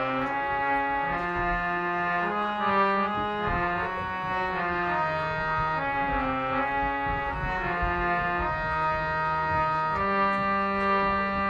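Instrumental music with a brass-like tone: a melody of held notes stepping from one pitch to the next over a long-held bass note.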